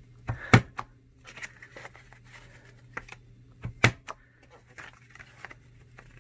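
Corner rounder punch on a The Works punch board clunking down through paper twice, each press a sharp double click, about half a second in and again near four seconds in, with light paper handling between.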